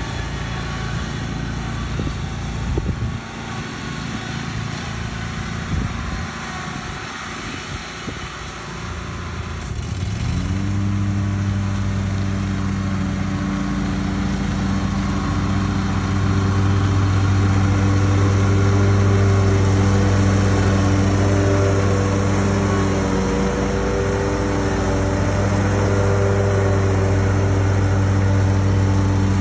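A small engine on lawn equipment, heard as a rough, unpitched low noise at first. About a third of the way in it revs up quickly to full throttle and then holds a steady, even hum.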